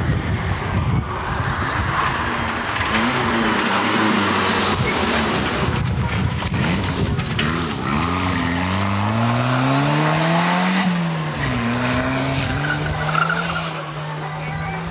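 Rally car engine at full throttle as the car comes up the road and passes close by. Its note climbs steeply through the revs, drops sharply about eleven seconds in, then holds fairly steady as the car pulls away, over a constant noise of tyres on the road.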